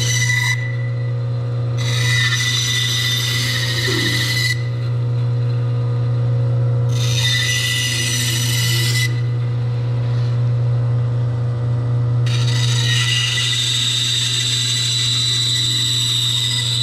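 Grizzly G0555X 14-inch bandsaw running with a steady motor hum, its blade cutting through a pine board in four stretches of a few seconds each, with short pauses between cuts.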